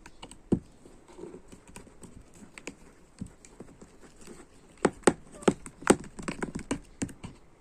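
Sticky homemade slime being squeezed and kneaded by hand, giving irregular wet clicks and pops that come thicker and louder in the second half.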